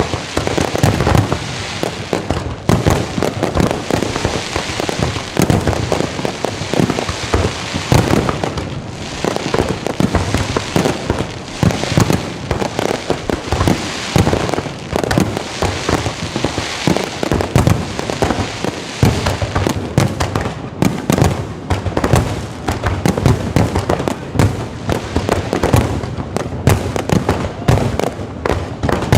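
Low-altitude fireworks display: a dense, continuous barrage of bangs and crackling bursts.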